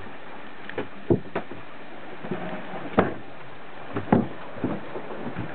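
Inside a sailing yacht's cabin under way at sea: a steady rushing noise with about half a dozen irregular sharp knocks and clunks, the loudest about one, three and four seconds in.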